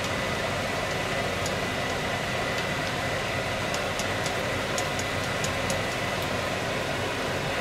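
Kitchen range-hood fan running steadily with a faint high whine, over scattered light pops and crackles from shiitake mushrooms cooking down in a soy glaze in a saucepan.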